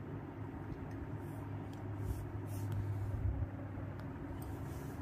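A steady low hum with faint, soft rustles here and there as the fabric is handled.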